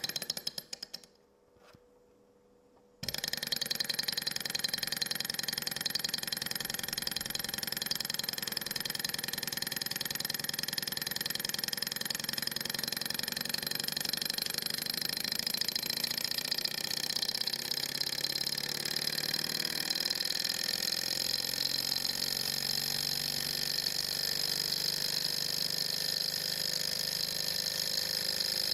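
Small metal Stirlingkit model Stirling engine running on the heat of a lighter flame, with a fast, even mechanical clatter of its piston and flywheel and a steady high whine. The sound cuts in about three seconds in.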